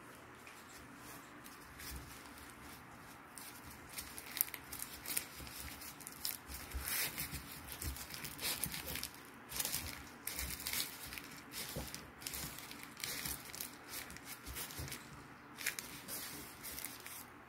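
Gloved hands rolling and pressing a gimbap roll: irregular crinkling and rustling of the dried laver sheet and disposable gloves, with soft squishes, busiest through the middle.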